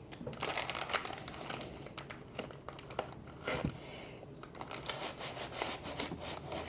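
Cornstarch packaging crinkling and rustling as it is handled, with scattered soft clicks and taps.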